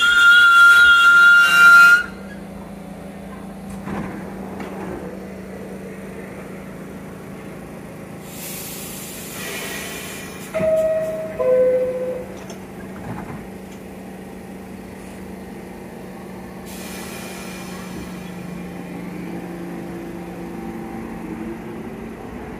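R46 subway train's wheels squealing loudly as it brakes to a stop, then the stopped train hums steadily. A hiss of air comes about halfway through, followed by the two-tone falling door-closing chime. After a second hiss the traction motors begin a rising whine as the train starts to pull out.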